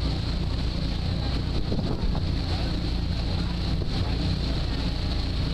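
Passenger ferry under way: its engine runs with a steady low hum beneath the rushing wash of its wake, and wind buffets the microphone.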